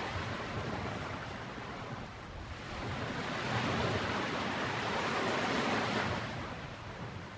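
Ocean surf washing on a beach: a steady wash of breaking waves that eases off, swells over a few seconds in the middle, then eases again near the end.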